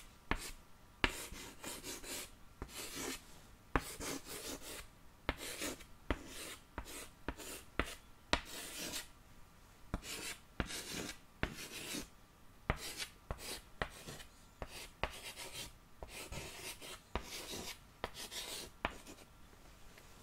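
Handwriting on paper: a long run of short, irregular scratchy strokes with small ticks.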